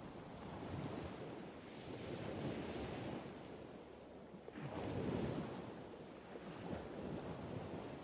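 Ocean surf: waves washing in and drawing back in a steady hiss that rises and falls, with a bigger wave swelling about five seconds in.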